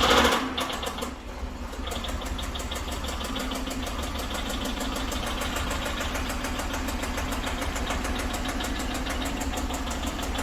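BMW 550i's N63TU twin-turbo V8 surging just after it starts, then settling into a steady idle.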